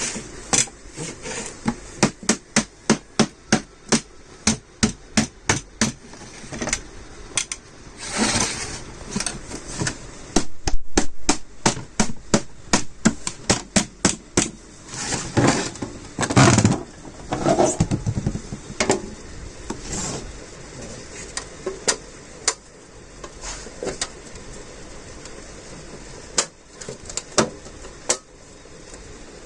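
Repeated hammer strikes during fridge freezer assembly. They come in quick runs of about two to three blows a second, with pauses and scattered single knocks between the runs.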